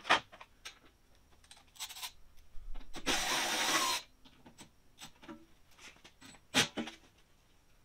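Hand-tool clicks and knocks while screws are being taken out of a side-by-side's cargo box, with a power driver run for about a second near the middle.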